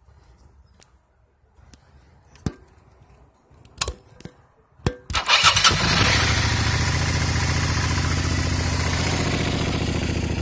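A few sharp clicks, then a Suzuki SV650S's V-twin engine fires about five seconds in and settles into a loud, steady, loping idle through a Two Brothers Racing slip-on muffler.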